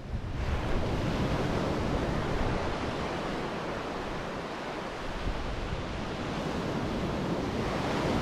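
Surf breaking and washing up a sand beach. It swells about half a second in, eases in the middle and builds again near the end, with wind rumbling on the microphone.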